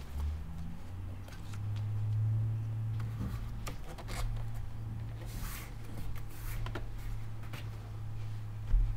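Hands rubbing and pressing a soft heated footbed blank into a foam foot-impression mold: scattered rustles, swishes and small clicks over a steady low hum, with a low thump near the end.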